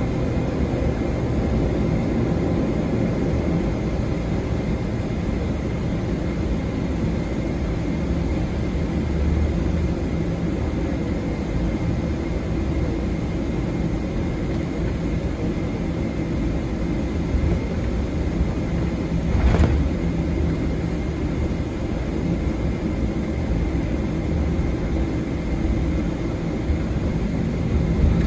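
Steady rumble of a Boeing 777-300ER's GE90 turbofan engines and airframe, heard from inside the cabin next to the engine, with a faint steady whine above it. One short sharp knock about twenty seconds in.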